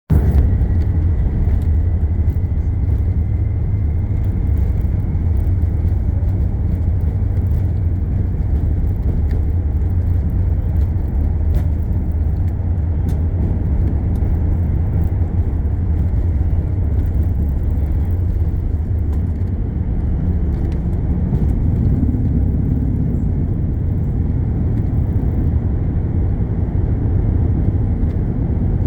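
Steady low rumble of cabin noise inside a British Airways Airbus A380 during departure, with no marked rise or fall.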